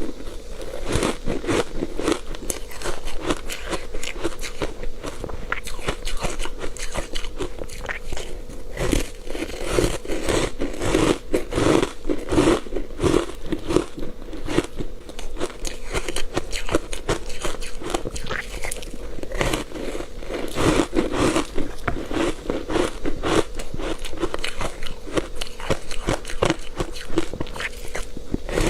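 Close-miked crunching and chewing of ice coated in matcha powder: dense, irregular cracks and crackles of ice breaking between the teeth.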